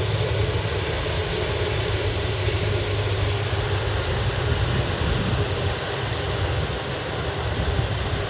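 Jet engines of an Airbus A330-200F freighter at takeoff power: a steady rush of noise with a strong low rumble beneath it. A faint whining tone fades out right at the start.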